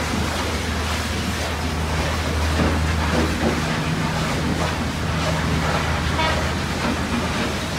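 Steady low mechanical hum under a constant hiss, with no sharp strokes or clicks.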